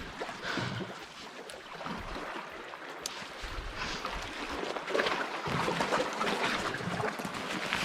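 Sea water washing on the shore with wind on the microphone, a steady rushing noise that grows a little louder about five seconds in.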